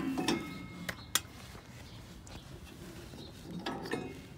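Handling noises while a riding mower's deck belt is worked off its pulleys by hand: a few sharp metallic clicks in the first second or so, then quiet, with a short rustle of the belt and parts shortly before the end.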